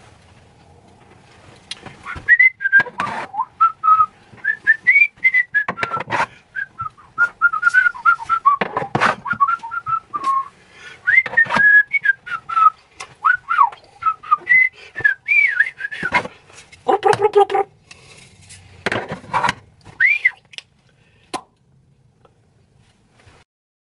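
A person whistling a wandering tune, with several sharp knocks and clatters as plastic kitchen utensils are hung in a wooden rack.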